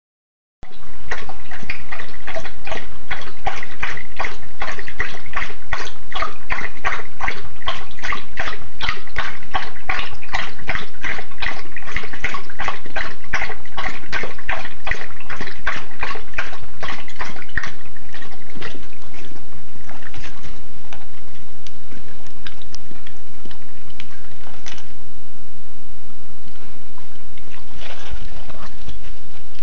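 A Doberman Pinscher lapping water from a stainless-steel bowl: a quick, even rhythm of about three to four laps a second that stops about two-thirds of the way through, leaving only a few scattered laps.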